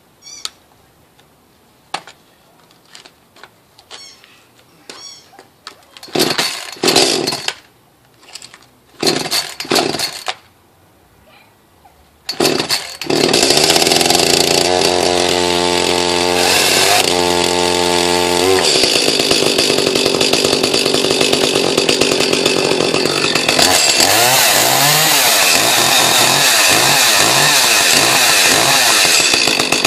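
Echo CS-310 two-stroke chainsaw cold-started after a winter unused: a few light clicks, then several short bursts as the starter cord is pulled, and the engine catches about twelve seconds in. It then runs steadily, its note changing about six seconds later, and is revved up and down near the end.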